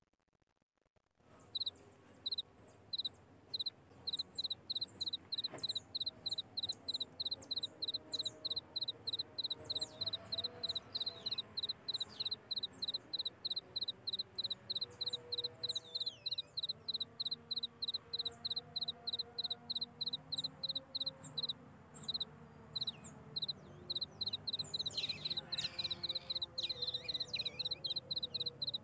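Insects chirping in a steady, even pulsing rhythm, starting about a second in, with a few short high chirps sliding down in pitch over it.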